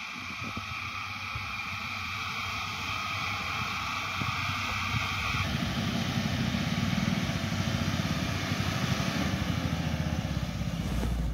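Mahindra Bolero's 1.5-litre three-cylinder diesel engine revving hard as the SUV spins circles on loose ploughed soil, tyres churning the dirt. It gets clearly louder from about halfway through, the engine note rising and falling.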